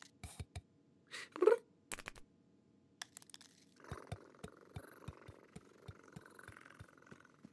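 A cartoon cat's short, rising, cat-like call voiced by a person, about a second and a half in, among a few soft clicks. From about three seconds in come soft, regular ticks, two or three a second, over a faint hiss.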